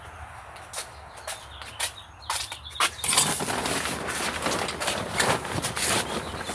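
Scattered clicks, then about three seconds in a dense, louder crunching rustle begins.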